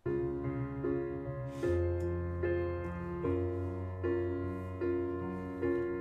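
Piano intro of a slow R&B ballad: chords struck in a slow, even pulse over a held low bass note.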